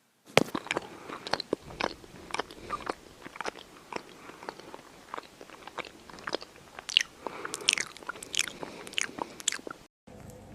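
Crunchy chewing: a steady run of irregular crisp bites and crunches, as of dry food being chewed, cutting off suddenly shortly before the end.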